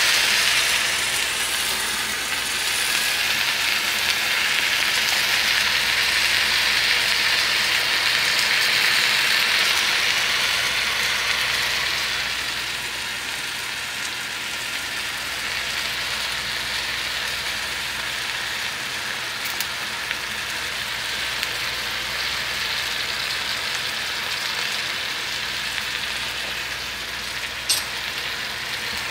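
Food sizzling steadily in a hot oiled pan, a little quieter after about twelve seconds, with one brief click near the end.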